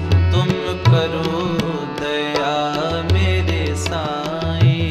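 Background devotional music in an instrumental passage between sung lines: a sustained melody over steady hand-drum strokes.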